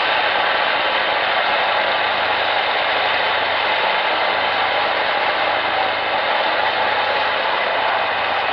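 Steady loud drone of a transport aircraft's engines in flight, mixed with wind rushing in through the open rear ramp, heard from inside the cabin. Even and unbroken, with a faint low hum under the noise.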